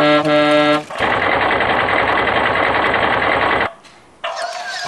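Matchbox Stinky the Garbage Truck toy making its sound effects. First comes a short buzzing tone lasting under a second. Then, about a second in, whirring, rattling motor noise runs for nearly three seconds and stops abruptly.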